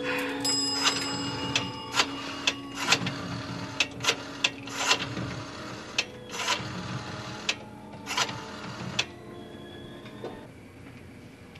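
Telephone being dialled in a phone booth: a short metallic ring near the start, then a string of sharp, irregular clicks from the dial.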